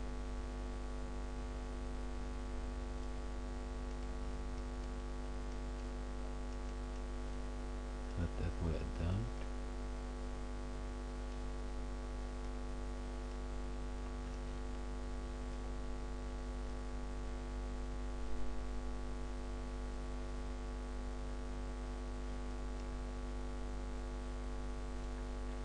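Steady electrical mains hum with a buzz of many overtones in the recording, running at an even level while the mouse-driven modelling work goes on without narration.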